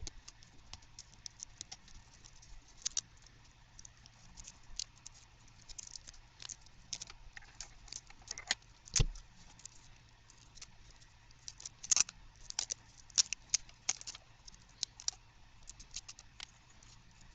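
Hands wrapping tape around a repaired magnet coil's thermal protector and leads: scattered small clicks and crinkles of tape and wire being handled, with one sharper knock about halfway through.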